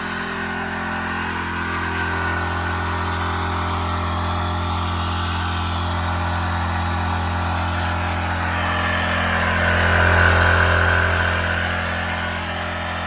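Craftsman Professional Series pressure washer's engine running steadily, left running unattended. It swells louder about ten seconds in, then eases back.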